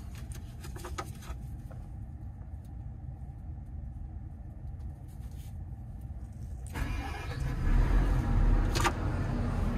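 Develon excavator's diesel engine starting about seven seconds in and then running steadily, after a few switch clicks and a low hum.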